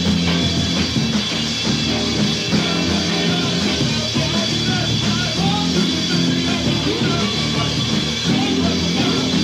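Rock music from a 1981 band recording, with a repeating bass line under the band.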